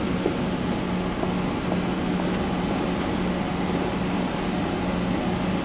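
Metro train standing at the platform with its onboard equipment and ventilation running: a steady hum and hiss, with a low drone that wavers on and off.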